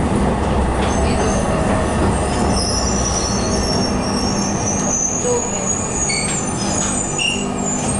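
ATM 4900-series Fiat Ferroviaria tram running slowly, heard from inside the car: a steady low rumble from the motors and the wheels on the rails. Between about two and a half and six seconds in, a high, wavering metallic squeal comes from the running gear.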